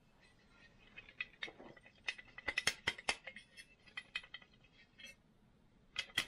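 Small metal tools and chainsaw parts clinking and rattling as they are handled: a scatter of sharp clicks and taps, busiest in the middle, with two more sharp clicks near the end.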